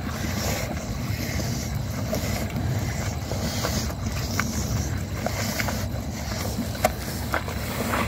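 Steady low rumbling background noise, like wind on the microphone, with a few short clicks scattered through, the sharpest near the end.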